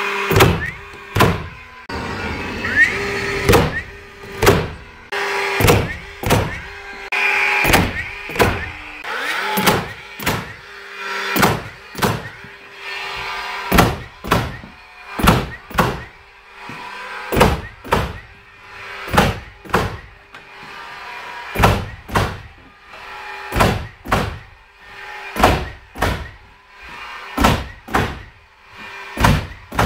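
DeWalt 18V XR brushless cordless framing nailer driving nails into shiplap cladding boards, fired over and over at roughly one shot a second, each a sharp short bang. A faint steady hum runs beneath the shots.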